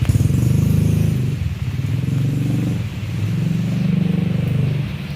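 Motorcycle engine running close by, its pitch rising and falling twice as it revs up and eases off. Steady rain hiss underneath.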